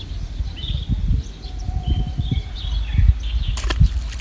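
Small birds chirping in short, scattered calls over an uneven low rumble, with a brief sharp crackle near the end.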